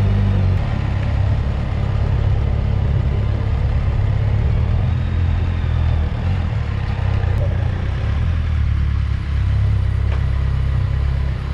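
Harley-Davidson motorcycle engine running steadily while riding, a deep low rumble heard from the bike itself.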